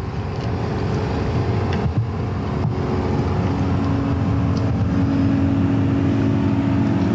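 Engine of a small fishing boat running steadily with a constant hum, over an uneven low rumble.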